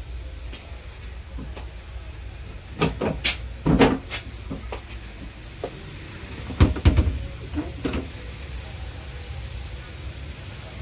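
Old wooden toilet door in a railway carriage being worked by its knob: two clusters of knocks and latch clicks, the louder one about seven seconds in as the door is shut. A steady low train rumble runs underneath.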